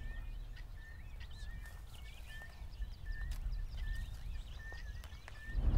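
Quiet outdoor ambience with a low rumble, and a small bird giving short, high chirps repeated about twice a second.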